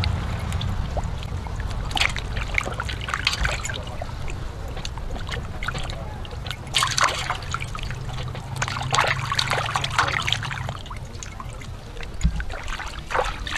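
Water sloshing and splashing in a stainless steel bowl as a whole raw chicken is rubbed and turned in it by hand, in irregular splashes that are busiest about seven to ten seconds in.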